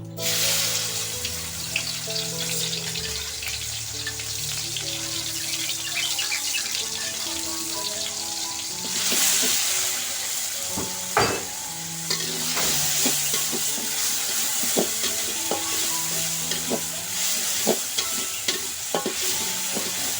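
Food sizzling in hot oil in a pan, the sizzle swelling about nine seconds in, with a spatula knocking and scraping against the pan through the second half. Soft background music plays underneath.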